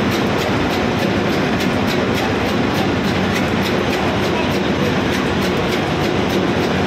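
Loud, steady din of a ship's diesel engine room with the machinery running, and a regular ticking about three times a second running through it.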